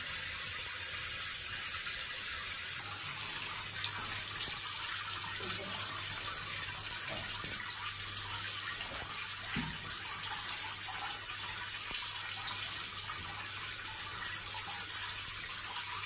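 Water spraying steadily from a multi-mode shower head, an even hiss of running water, with a steady low hum under it.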